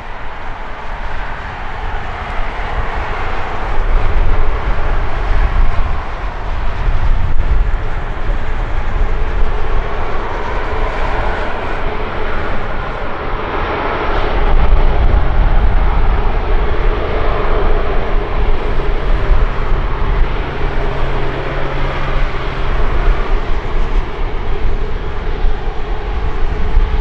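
Airbus A350-900 with Rolls-Royce Trent XWB turbofan engines, running as a loud, steady jet rumble and hiss that swells about halfway through.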